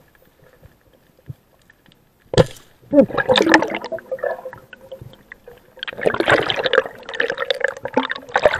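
Underwater sound on a spearfisher's camera: a sharp knock about two seconds in, then bursts of bubbling, rushing water as the diver swims up toward the surface.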